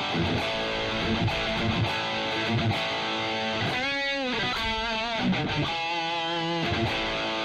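Ibanez RGAT62 electric guitar through a Boss Katana 100 212 combo amp on an 80s-style super crunch patch with a Tube Screamer boost, playing sustained overdriven chords and notes. About four seconds in a note is bent up and back down, then held notes are shaken with vibrato.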